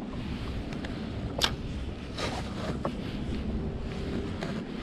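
Wind rumbling on the microphone, with one sharp click about a second and a half in and a few faint ticks a second later.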